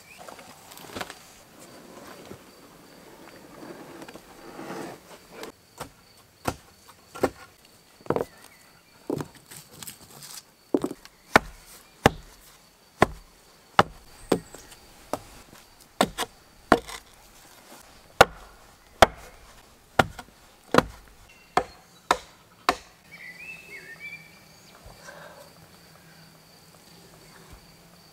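Wood struck hard and repeatedly with a hand tool: about twenty sharp blows, one or two a second, starting several seconds in and stopping a few seconds before the end. A faint steady, high-pitched insect drone runs underneath.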